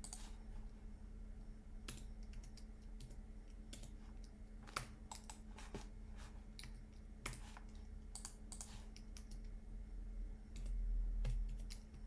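Computer keyboard keys and mouse buttons clicking at irregular intervals over a steady low electrical hum, with a low rumble about a second long near the end.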